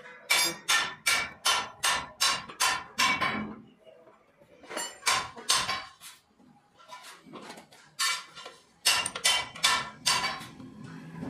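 Metal-on-metal hammer strikes on the steel parts of an electric reel grass cutter under repair, each ringing briefly. A quick run of about a dozen blows at roughly three a second, then a pause, a few more strikes, and another quick run later on.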